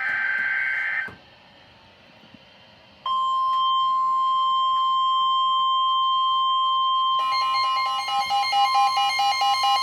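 NOAA Weather Radio emergency alert: a one-second burst of warbling digital header data tones, a pause, then the steady 1050 Hz warning alarm tone from about three seconds in. About seven seconds in, a second, rapidly pulsing alert tone joins over it.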